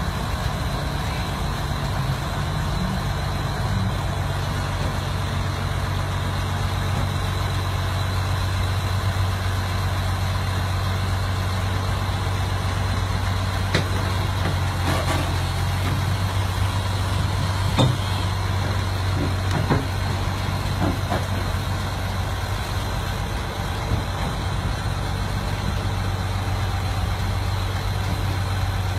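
Heavy diesel machinery, a tracked excavator and a dump truck, running with a steady low hum, with a few short knocks and clanks in the middle as the excavator works the marble block into the truck bed.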